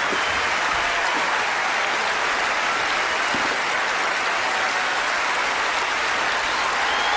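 A very large audience applauding steadily, a dense, even wash of clapping from thousands of hands.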